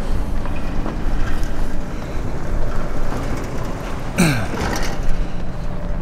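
Outdoor street ambience on a snowy street: a steady low rumble, with a short hiss and a falling tone about four seconds in.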